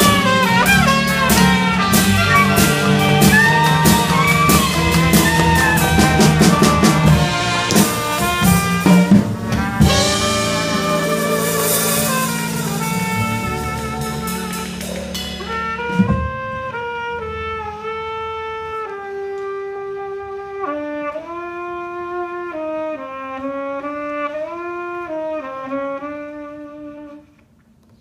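Live traditional jazz band playing, trumpets and clarinet over drums with cymbals. About halfway through, the band stops on a hit and a single trumpet plays on alone, unaccompanied, pausing briefly near the end before coming back in.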